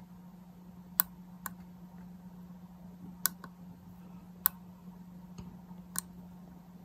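Sharp, irregular clicks, about five in all, from the QCX-mini transceiver's rotary tune knob being turned and pressed to step into the setup menu, over a steady low hum.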